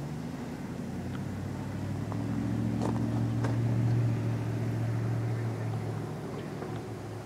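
A motor vehicle's engine passing by: a steady low hum that grows louder to a peak about four seconds in, then fades away.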